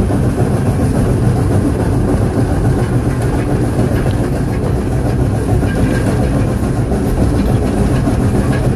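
Steam locomotive No. 40 and its train running along the track, heard close up from on board: a steady low rumble with the clatter of wheels on the rails.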